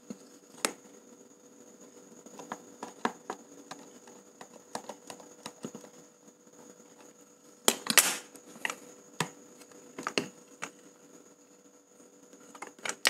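Scattered small clicks and taps of a precision screwdriver and plastic parts while screws are taken out of a Canon EOS 650D's flip-screen hinge, with a louder scraping rustle about eight seconds in. A faint steady high whine sits underneath.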